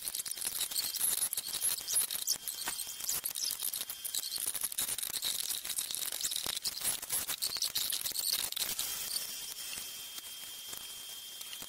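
Sped-up workbench handling noise from reassembling a power supply case: a rapid, chittering run of small clicks, scrapes and squeaks, mostly high-pitched, over a faint steady high whine. It grows a little quieter in the last few seconds, where the whine stands out more.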